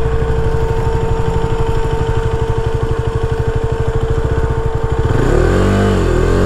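KTM 250 Duke's single-cylinder engine idling with an even low pulse, then revved in a few rising and falling throttle blips about five seconds in.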